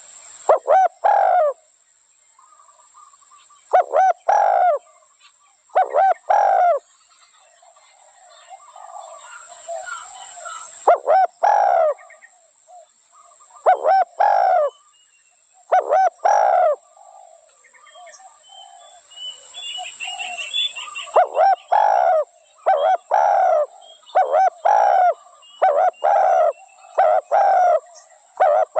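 Spotted dove cooing: short phrases of two or three coos repeated every few seconds, coming in quicker succession for the last several seconds, with faint chirps of other small birds in the background.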